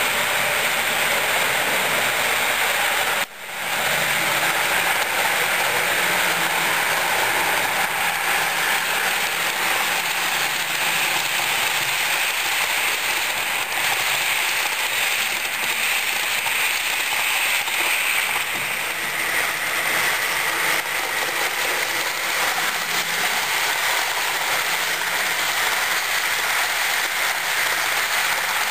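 Model train running along the track: a steady rolling and motor noise from wheels on the rails, with a brief dropout about three seconds in.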